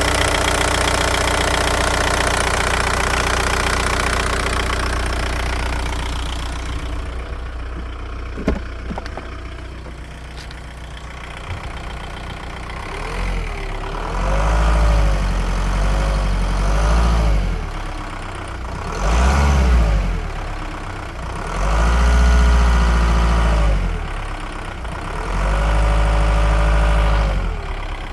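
Volkswagen Golf 1.9 TDI (AHF) diesel engine running with a ticking/knocking noise, then revved in several short throttle blips in the second half, each rising and falling in pitch. The owner puts the remaining ticking down to the injection pump.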